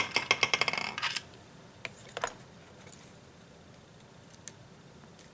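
Metal lock picks clinking and clattering against each other for about a second, with a bright ringing, followed by a few lighter clicks.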